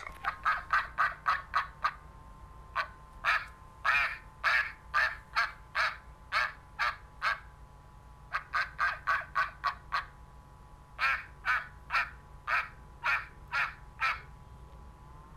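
Duck quacking in quick runs of short calls, about four a second, with brief pauses between the runs.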